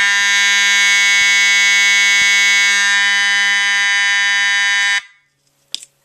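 EST 757-7A-HS Integrity fire alarm horn/strobe, which uses the older 792-series sounder, sounding a loud, steady continuous horn tone with no temporal coding. A faint tick comes about once a second. The horn cuts off suddenly about five seconds in for a simulated panel silence, and a couple of clicks follow near the end.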